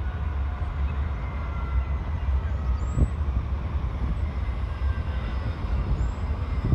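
Electric tram approaching along the rails: a steady low rumble with faint whining tones above it, and a single sharp click about three seconds in.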